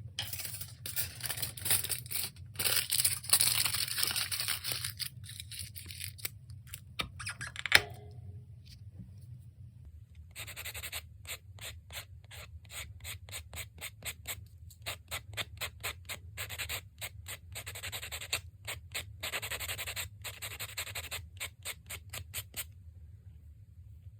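Nail file rubbing back and forth over a gel nail in quick, even strokes, filing the gel off. It comes in two long runs with a pause between them, and a sharp tap comes just before the pause.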